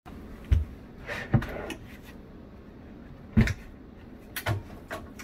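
Clunks and knocks from a fold-out table panel being pulled out of a low cabinet's front. The loudest knocks come about half a second in and near the middle, with lighter rattles between them.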